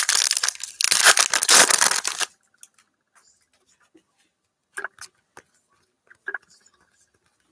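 Trading card pack wrapper torn open: a loud ripping and crinkling for about two seconds, then a few faint clicks as the cards are handled.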